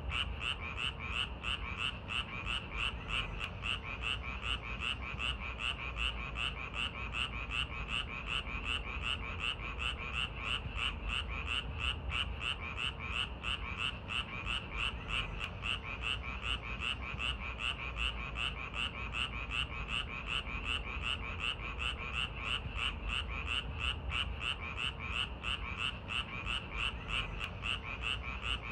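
Frogs calling in an unbroken chorus, a rapid, even pulsing of about four croaks a second, over a faint low background rumble.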